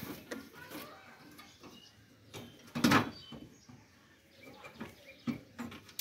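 Scattered light knocks and scrapes of an air conditioner outdoor fan motor being handled and positioned against its sheet-metal mounting bracket, with one louder clunk about three seconds in.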